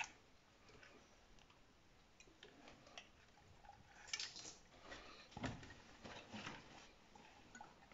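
Near silence with faint, scattered light clicks and soft rustles from hands turning over a Keihin carburettor and pressing a cloth rag beneath it.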